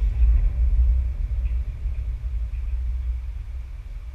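Wind buffeting the microphone: a loud, deep, rough rumble that comes in suddenly and slowly dies down.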